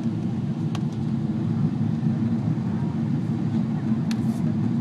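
Airliner cabin noise on descent, heard from inside the cabin: a steady low rumble of engines and airflow. Two short clicks come through, about a second in and near the end.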